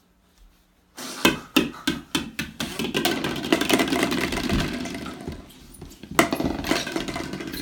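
A rapid series of sharp knocks and clattering, like hard objects being banged or handled, starting about a second in and going on irregularly.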